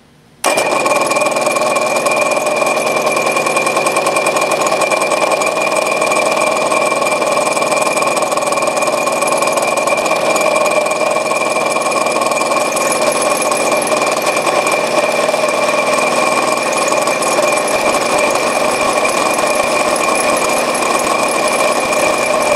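Small milling machine's spindle starting suddenly and running steadily with a whine, while a single-point bit in a fly-cutter holder bores out a drilled hole in a metal part.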